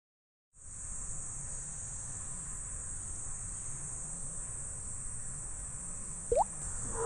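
After a moment of silence, a steady high-pitched chorus of insects sets in over a low rumble. Near the end, one short rising chirp stands out as the loudest sound.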